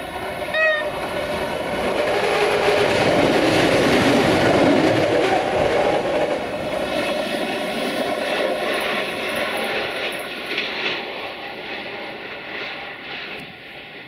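Duewag BR628 diesel multiple unit passing close by: its diesel engine and wheels running on the rails, swelling to a peak about four seconds in and fading as it moves away. A brief high tone sounds about half a second in.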